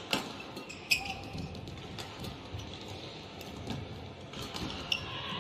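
Badminton rally: sharp racket strikes on the shuttlecock, two loud ones about a second apart near the start and another near the end, with shoes squeaking briefly on the court mat between them.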